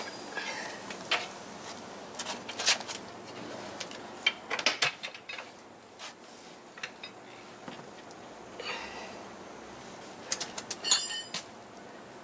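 Irregular metallic clinks, knocks and scrapes of tools and metal parts handled while a motorcycle wheel is fitted back on, with a cluster of brighter ringing clinks near the end.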